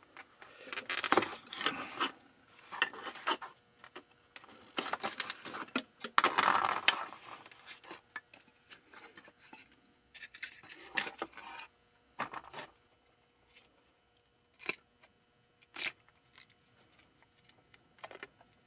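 A screwdriver prying apart the halves of a silicone casting mold: irregular scrapes and clicks, busiest over the first several seconds, then only occasional sharp clicks.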